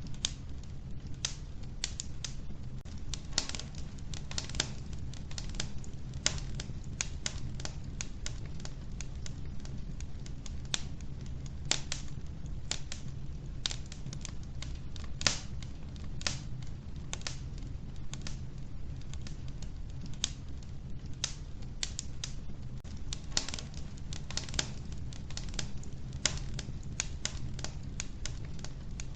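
Wood fire crackling in an old wood-burning stove: irregular sharp pops and snaps, a few louder than the rest, over a steady low rumble.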